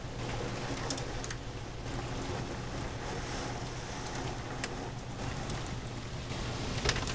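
Heavy rain falling steadily, with a few sharp ticks through it.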